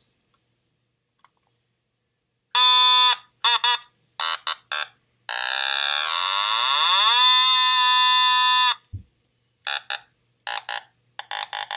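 Otamatone played with a buzzy electronic tone: after a silent start, one short held note, a few quick notes, then a long note that slides down and back up in pitch, holds, and cuts off. A low thump follows, then a run of short clipped notes.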